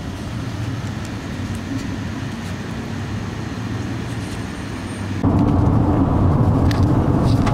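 Steady outdoor background hum, then about five seconds in an abrupt change to the louder low rumble of road and engine noise inside a moving minivan's cabin.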